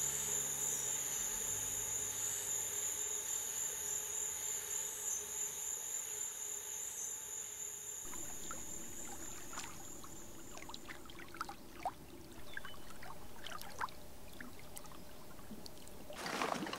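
Night insects keep up a steady high-pitched trilling chorus that fades out about ten seconds in. They give way to water lapping and trickling with scattered small splashes and clicks, and a louder burst of noise near the end.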